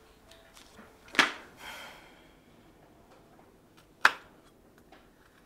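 A santoku knife chopping carrots on a bamboo cutting board: two sharp chops about three seconds apart, the first followed by a brief scraping sound.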